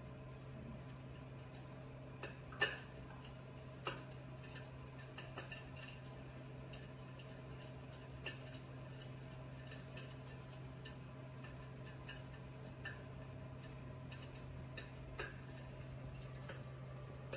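Electric fireplace insert's simulated fire-crackling sound: faint, irregular crackle clicks, the loudest about two and a half seconds in, over a steady low hum.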